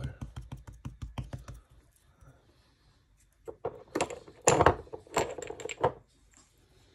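Kitchen handling sounds while seasoning a steak: a quick run of small clicks, then after a short pause several louder knocks and rustles from hands, a spice grinder and the meat on a cutting board.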